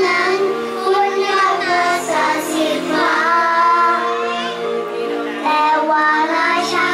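Young children singing a song into handheld microphones, the voices amplified, holding each note for about a second.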